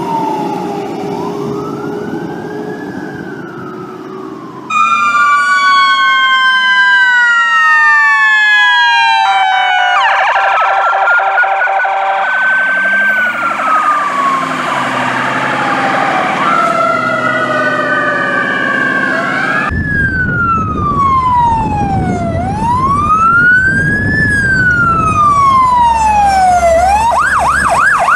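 Fire truck sirens on emergency response, wailing in slow repeated rises and falls, with several sirens overlapping in places. A stretch of rapid pulsed tones comes about a third of the way in, and near the end the siren switches to a fast yelp over a heavy engine rumble.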